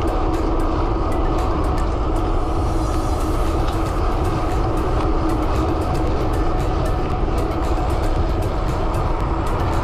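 Steady rush of wind buffeting a handlebar-mounted action camera's microphone, with tyre hum from a road bike rolling at speed on asphalt.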